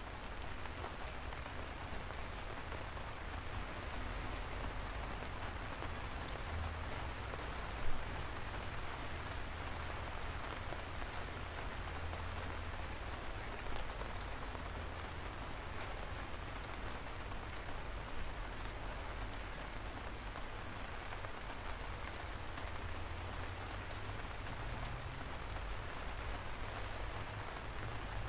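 Steady rain falling, an even hiss of drops with a few sharper single drop hits, the most distinct about eight seconds in.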